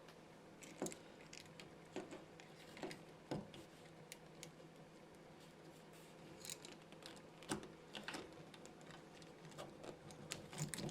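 Faint, irregular small clicks and scrapes of hand tools and copper wire at a wall switch's screw terminal as a stubborn wire is worked free.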